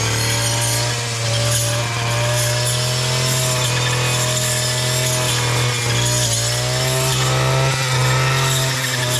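Husqvarna two-stroke brushcutter fitted with a cutting disc, running at high revs as it clears brush and ferns. The engine note dips and recovers as the disc bites into the growth, most clearly about six seconds in.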